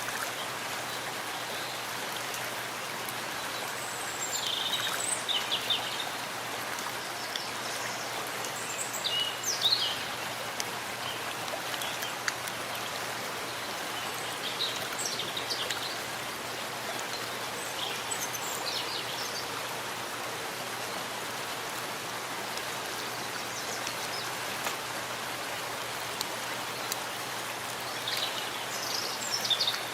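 Steady rain falling in a forest, an even patter and hiss, with birds chirping briefly now and then.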